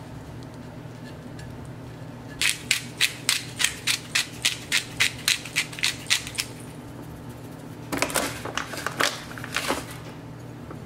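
Pepper mill being twisted: a run of sharp, evenly spaced grinding clicks, about four a second, then near the end a shorter, faster burst of clicks.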